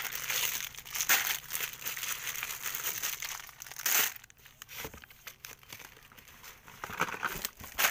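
Plastic sachet strips of fabric conditioner and laundry detergent crinkling as they are handled and shifted in a cardboard box. The crinkling is dense for about the first four seconds, with a loud rustle at the start and another about four seconds in, then becomes sparse and fainter.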